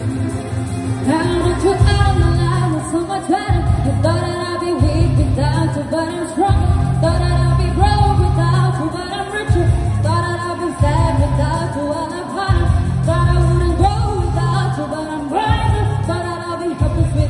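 A woman singing live into a handheld microphone over a loud amplified pop backing track, with a heavy bass that pulses in a steady beat.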